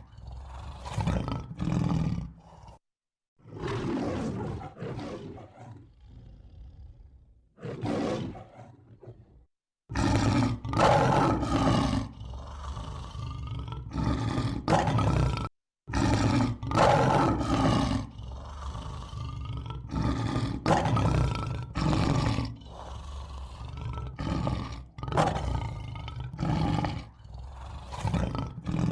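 A large wild animal roaring and growling in a long series of calls, broken by a few brief silences.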